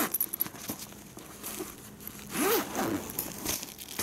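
The zipper of a fabric laptop briefcase-backpack being pulled open in strokes, a sharp rasp at the start and a longer one about two and a half seconds in, with the fabric rustling.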